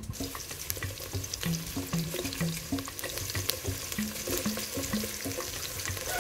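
Chopped onions sizzling as they drop into hot cooking oil in a metal pot over a wood fire; the sizzle starts suddenly and carries on steadily, with background music underneath.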